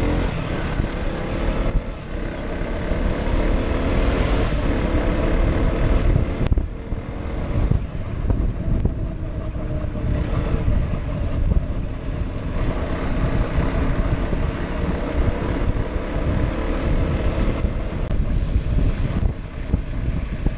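KTM Duke single-cylinder motorcycle engine running at riding speed under heavy wind noise on the camera microphone, its pitch gliding up and down several times as the throttle changes.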